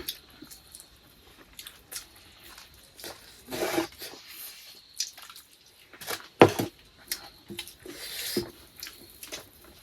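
Close-up eating sounds during a meal of rice and egg curry: wet chewing and smacking, with scattered small clicks and one sharper knock about six and a half seconds in.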